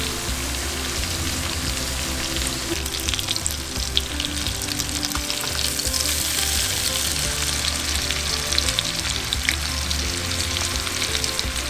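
Mutton snapper fillets sizzling in butter and olive oil in a frying pan, a steady crackle of fine spitting ticks that grows a little brighter about halfway through, as the fillets are turned over with a utensil.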